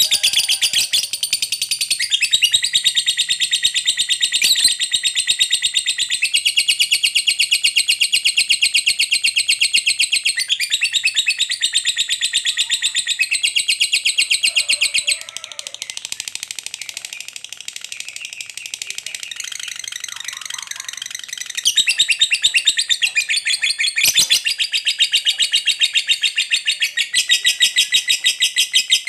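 Lovebird 'ngekek panjang': one long, unbroken chattering trill of rapid, shrill, repeated notes. It drops to a softer stretch about halfway through, then comes back loud for the last several seconds.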